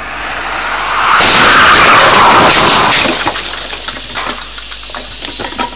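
Car crash: a loud rush of noise swells and peaks about a second and a half in, then fades into scattered short clicks and rattles, like debris settling after the collision.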